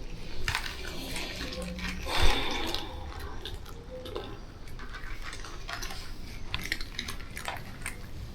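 Feeding bowls being handled, with scattered clinks and clicks, and a short pour into a bowl about two seconds in that is the loudest part.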